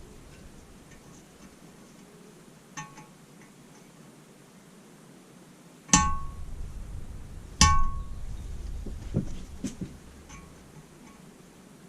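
Hammer blows on a steel chisel, chipping out the remains of a sheared bolt from a drilled-out threaded hole in a Lister D engine's cast cover. A light ringing strike about three seconds in, two loud ringing clangs about six and seven and a half seconds in, then a few softer knocks.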